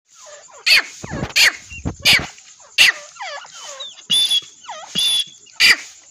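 Teetar (partridges) calling: a run of short, loud, sharp calls repeating about every two-thirds of a second, with softer falling chirps in between.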